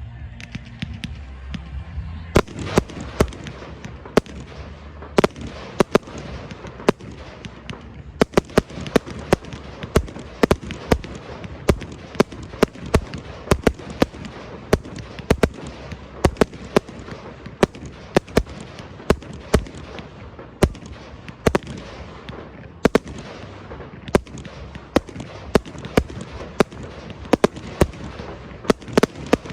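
Aerial fireworks display: a continuous rumble of shells bursting with many sharp cracks and reports, several a second at times, starting about two seconds in.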